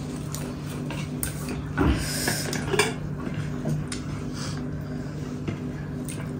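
Scattered clinks and scrapes of cutlery against dishes while people eat, over a low steady hum.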